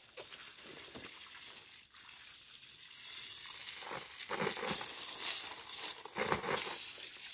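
Water spraying from a garden hose onto a stone and concrete wall: a steady hiss that grows louder about three seconds in, with louder spurts of splashing around the middle and again near the end.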